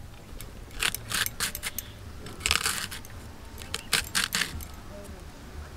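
A fresh cabbage being shredded by hand against a boti blade: crisp crunching cuts come in irregular strokes, with a longer run of cuts about two and a half seconds in and a quick cluster around four seconds.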